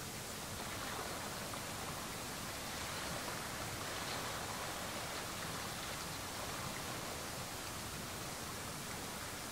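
Steady, even hiss of outdoor background noise with no distinct events, likely a mix of wind, distant sea and microphone noise.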